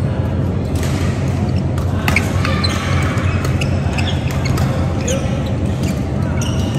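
Badminton rally: rackets striking the shuttlecock in sharp knocks and court shoes squeaking on the floor, over a steady low hum in a large hall.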